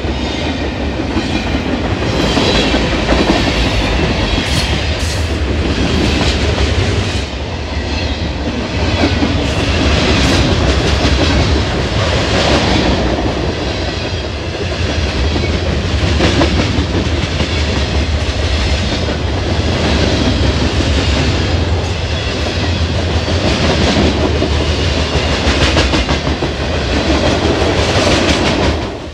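Norfolk Southern mixed freight train's cars rolling past close by, their steel wheels clicking over the rail joints in a steady clickety-clack. The sound drops off suddenly near the end as the last car goes by.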